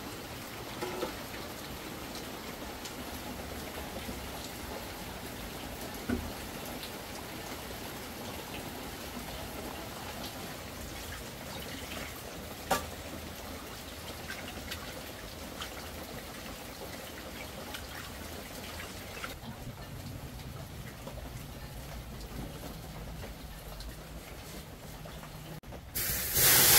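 Steady rain falling in an even hiss of water, with a couple of sharp knocks. About two-thirds of the way through the sound turns duller.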